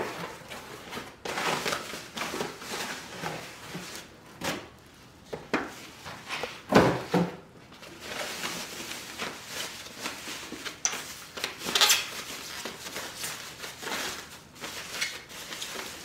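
A cardboard box being opened and a juicer chamber pulled out of a white wrapping bag: rustling and scraping of the packaging, with a few knocks, the loudest about seven seconds in and again near twelve seconds.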